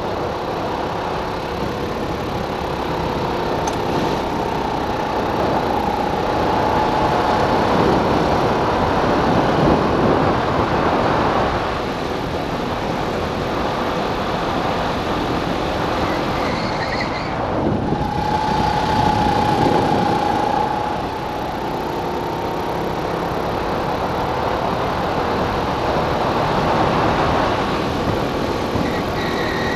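Racing go-kart engine running hard under the driver, its note swelling as the kart accelerates and dropping sharply about twelve and twenty-one seconds in as the driver lifts off, over a constant rush of wind and road noise.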